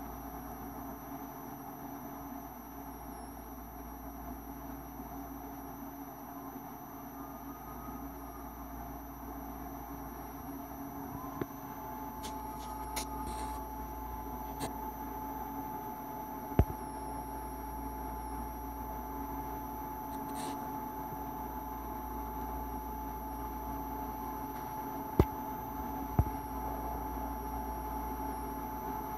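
Steady low background hum with faint constant whining tones, broken by a few sharp clicks: one a little past halfway and two close together near the end.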